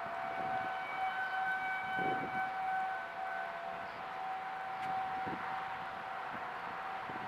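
Outdoor civil-defense warning siren sounding a steady wail for a tornado warning, holding one pitch while it grows louder and softer.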